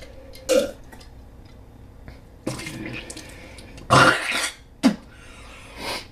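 A man coughing, burping and clearing his throat in a handful of short harsh bursts after swallowing a foul-tasting drink, the loudest about four seconds in.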